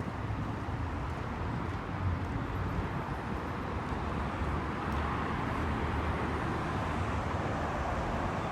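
Street traffic noise: a steady low rumble and hiss of passing vehicles, growing a little louder about halfway through.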